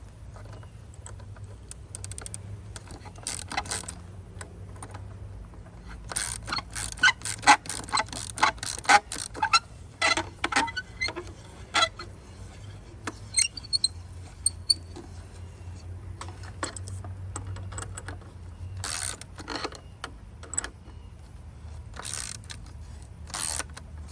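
Metal hardware and hand tools clicking and clinking as the rigging that lifts a sagging gate is adjusted, with a dense run of quick clicks in the middle and a few more near the end, over a faint steady low hum.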